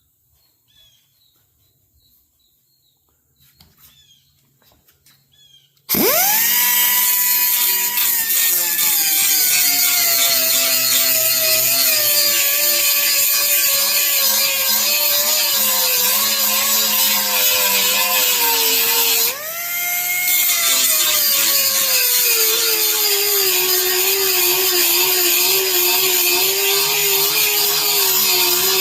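Faint bird chirps, then about six seconds in an electric grinder with a grinding stone starts with a sudden whine. Its pitch sags as the stone bears down on a steel lawn mower blade to sharpen the edge. A little past halfway it briefly eases off and the pitch climbs, then drops again under load.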